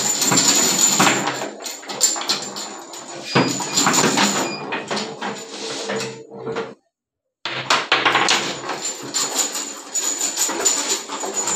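Table football being played fast on a homemade wooden table: a rapid, irregular clatter of plastic players striking the ball and steel rods knocking and sliding against the wooden sides. The sound cuts out completely for about half a second around seven seconds in, then the clatter resumes.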